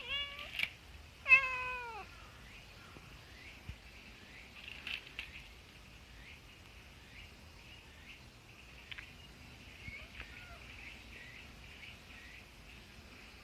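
A cat meowing twice, the second meow louder and sliding down in pitch, about a second after the first. The meows are followed by a faint steady background.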